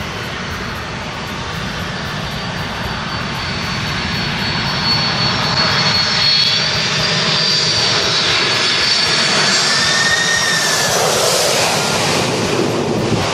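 Boeing 747's four turbofan engines as the jet passes low overhead on landing approach, gear and flaps down. The jet noise grows louder with a high whine from the fans, then deepens near the end as the plane goes over.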